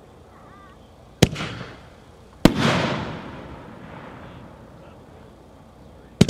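Phantom Grucci Palm to Willow firework cake firing its shells. A sharp report comes about a second in, then a louder boom with a long rumbling echo about two and a half seconds in, and a quick double report near the end.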